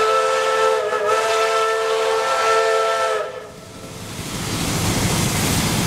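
Steam locomotive whistle blowing a chord of several tones, with a brief break about a second in, then cutting off just after three seconds in. A steady rushing hiss of steam builds up after it.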